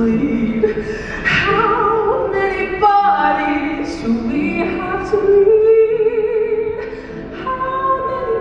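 A show choir's female soloist sings held, wavering notes into a handheld microphone. About three seconds in she makes a downward sliding run.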